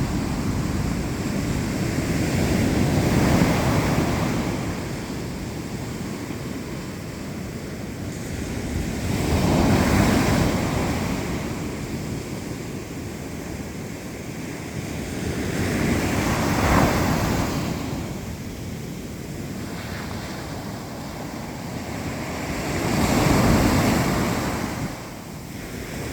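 Black Sea surf: waves breaking and washing on the shore in a continuous wash of noise. It swells four times, roughly every six or seven seconds, as each wave comes in.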